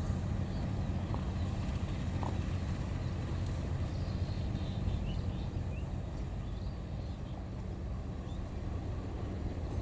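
Diesel-electric locomotive engine working under throttle as the train pulls away, a steady low rumble.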